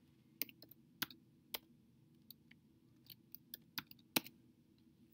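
Computer keyboard typing: about a dozen light, irregular keystrokes as a short answer is entered.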